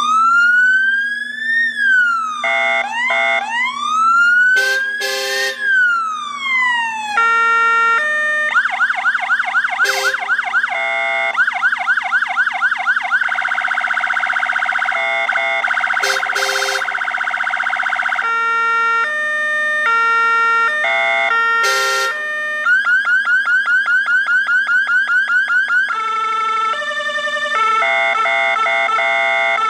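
Fire engine's electronic siren from a PSS 200N modulator, run through its tone programs: a slow rising and falling wail, then fast yelping warbles and stepped two-tone patterns, switching every few seconds.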